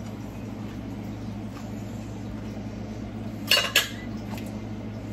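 Two sharp clinks of kitchenware in quick succession about three and a half seconds in, over a steady low hum.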